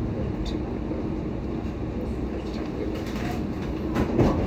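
Copenhagen Metro driverless train running along the track, heard from inside the front of the car: a steady rumble of the wheels and running gear. A few sharp clicks and knocks come near the end.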